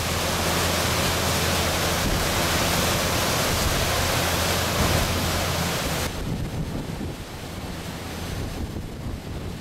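Wind buffeting the microphone and water rushing past the hull of a moving cruise boat, over a steady low engine hum. About six seconds in, the sound cuts abruptly to quieter wind and water without the hum.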